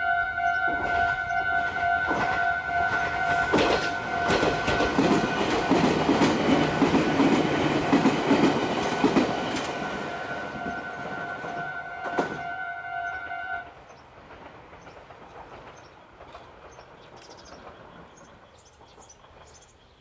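Japanese level-crossing warning bell ringing its steady 'kan-kan' while a Meitetsu train runs over the crossing, its wheels clacking over the rail joints. The train noise fades out a little past halfway, and the bell stops soon after as the crossing clears, leaving quiet outdoor background.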